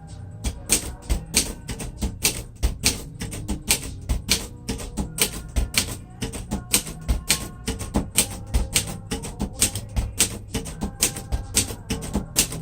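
1941 Royal Companion portable typewriter being typed on at a steady pace, its type bars striking about three to four times a second.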